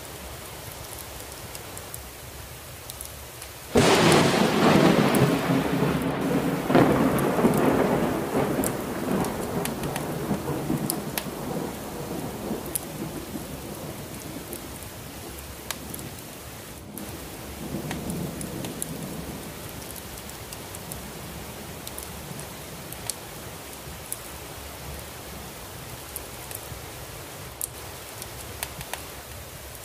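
Thunderstorm with steady rain. About four seconds in, a sudden loud thunderclap breaks and rolls on, slowly dying away over several seconds. A fainter rumble follows later on.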